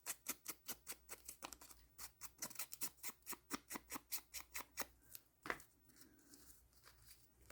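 Scissors snipping through paper in quick, even cuts, about six or seven a second, stopping about five seconds in, with one last snip shortly after.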